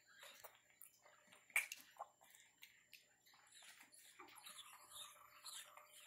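Faint wet sucking and smacking of a Java macaque drinking from a baby bottle's nipple: many small clicks, with one sharper click about a second and a half in.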